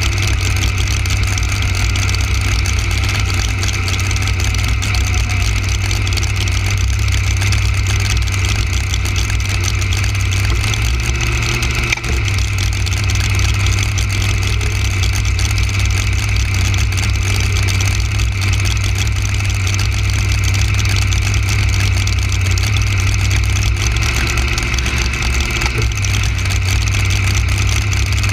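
Open-header V8 drag racing engine idling steadily, heard from on board the car, with a brief dip in level about twelve seconds in.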